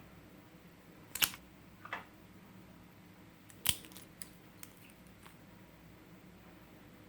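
Hands working clear slime, giving a handful of sharp clicks and pops: the loudest about a second in and near four seconds, with a few fainter ticks after.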